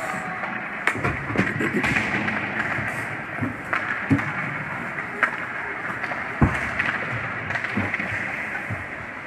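Ice hockey play: skate blades scraping the ice under a steady noisy haze, with scattered sharp clacks of sticks on the puck and ice, and one heavier knock about six seconds in.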